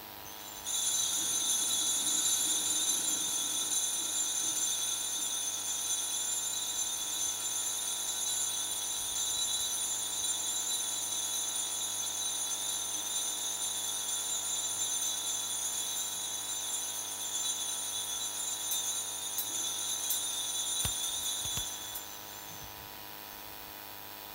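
Altar bells shaken in a continuous, steady high jingle, starting about a second in and stopping near the end: the Benediction bells rung during the blessing with the Blessed Sacrament.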